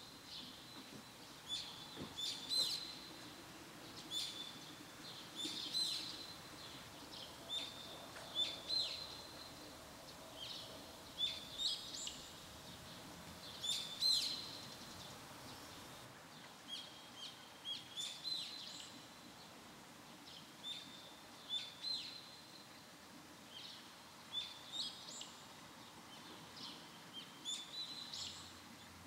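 Small birds chirping: short, high calls with quick pitch sweeps, repeated at irregular intervals about a second apart over faint background noise.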